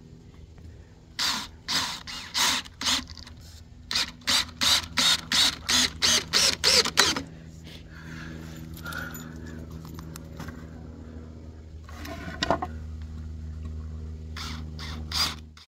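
Cordless DeWalt drill driving screws into wooden boards in short trigger bursts, at about three a second for several seconds, then a few more near the end. A steady low hum runs underneath.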